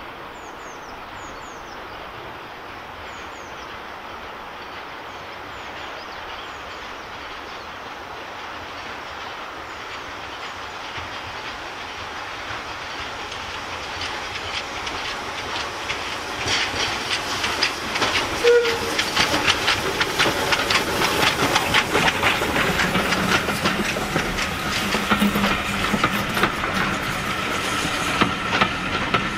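Andrew Barclay 0-4-0 saddle-tank steam locomotive approaching with its coaches, the sound growing steadily louder through the first half. The train then passes close by with a rapid, rhythmic clatter of wheels over the rail joints.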